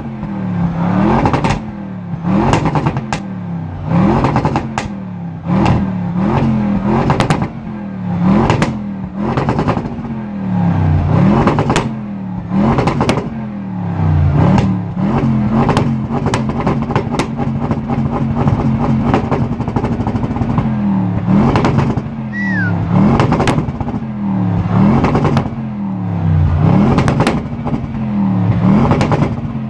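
Audi RS7's twin-turbo V8, running an APR Stage 1 tune, revved through its exhaust in short blips every second or two, with sharp pops and crackles as the revs drop. Midway it settles to a steady idle for several seconds, then the blipping resumes.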